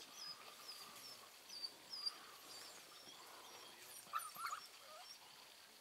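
Faint animal calls: a run of short high chirps, about three a second, over the first two seconds, then a brief cluster of squeaky calls about four seconds in.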